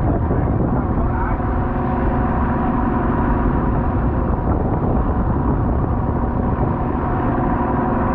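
Fishing boat's engine and machinery running steadily, a constant hum of several tones over a low rumble.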